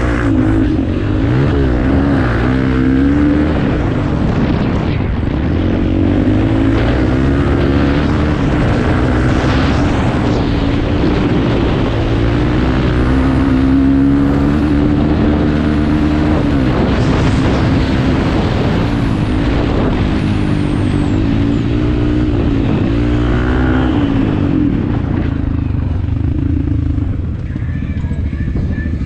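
Off-road motorcycle engines racing, revving up and down continuously as the riders work through the course.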